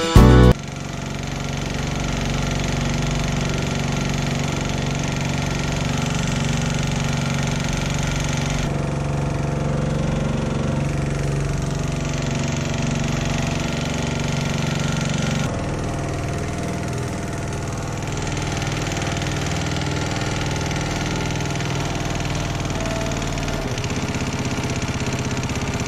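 Small air-cooled single-cylinder engine on a canoe, driving a long-tail propeller shaft and running steadily under way. Its pitch and level shift slightly about two-thirds of the way through.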